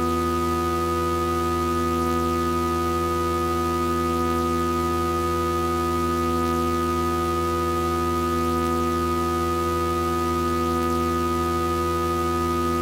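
Synthesized sound-healing tones: several pure, steady sine tones sounding together, from a deep low hum to a high ringing tone, held without change. They are a personalized frequency set generated from a voice sample.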